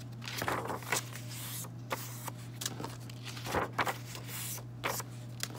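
Sheets of paper rustling, swishing and being creased as paper cut-outs are handled and folded in half, in irregular rustles, over a steady low hum.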